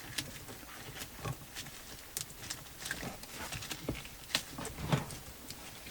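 Irregular small clicks and knocks of hands working a handbrake lever, pressing its tape-wrapped release button into the lever's shaft, with a couple of louder knocks about four and five seconds in.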